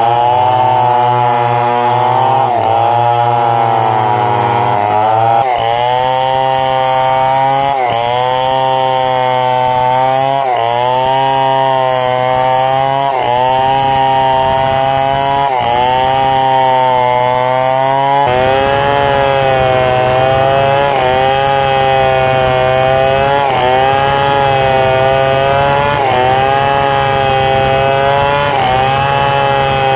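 Stihl 070 two-stroke chainsaw running at full throttle while cutting through a large log. Its engine speed dips under load and recovers about every two and a half seconds.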